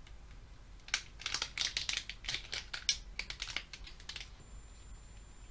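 Pokémon booster pack's foil wrapper crinkling and crackling as it is torn open by hand, a quick run of sharp crackles from about a second in until about four seconds in.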